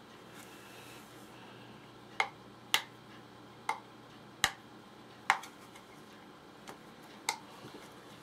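About seven sharp, irregularly spaced clicks and snaps of an OtterBox phone case being pried apart by hand, as the silicone outer skin is worked loose from the hard plastic shell.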